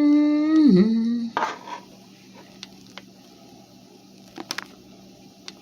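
A cat's long meow that rises, holds, dips and trails off about a second in. Then a brief rustle and a few light clinks of kitchenware.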